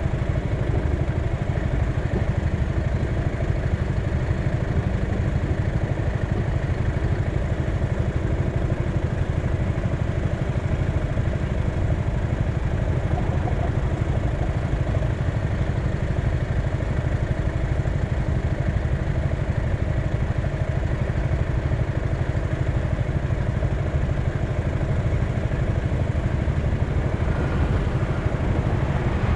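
A vehicle's engine running steadily, with a continuous low rumble and no change in pace or pitch.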